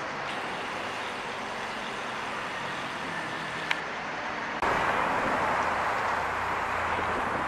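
Steady street traffic noise from a busy city road. There is a short click a little before halfway, then the noise jumps suddenly louder and takes on a low rumble.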